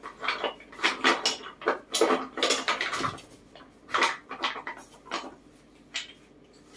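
Small wooden box and loose wooden pieces clattering and knocking as a macaque rummages through them. The knocks come irregularly, several a second, and thin out near the end.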